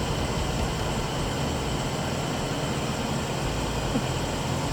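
Suzuki Swift's engine idling steadily after an oil change.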